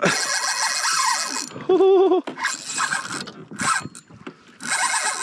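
Spinning reel's drag screaming as a freshly hooked big fish strips line off in a hard run. The buzz cuts out briefly about a second and a half in and comes back near the end, with a short wavering warbling tone between.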